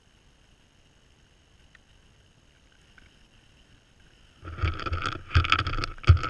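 Whitetail buck nosing right up against the GoPro. After about four seconds of quiet, its muzzle rubs and bumps the camera in a series of loud, irregular scrapes and thumps.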